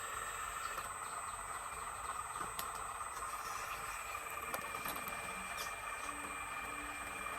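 Small electric motor of a 1/12-scale RC excavator running with a steady whine, with a few faint clicks.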